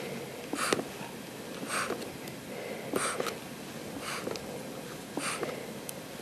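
AMBU resuscitation bag squeezed by hand to ventilate an infant manikin through its ET tube: a short puff of hissing air about once a second, five times, with small clicks, a manual ventilation rate of about 55 breaths a minute.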